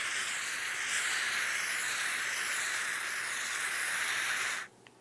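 Aerosol can of freezing cosmetic mist, driven by liquefied-gas propellant, spraying onto a tissue in one long, steady hiss that cuts off near the end.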